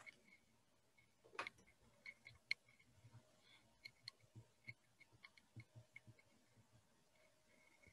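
Near silence with faint, irregular small clicks and taps, with one brief louder rustle about a second and a half in.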